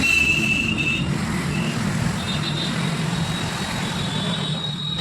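Electric motor running steadily with a hum and a thin high whine. The whine steps up in pitch about two seconds in.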